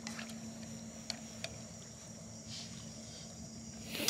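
Quiet background of a steady low hum under a faint, high, insect-like chirring, with a few light clicks.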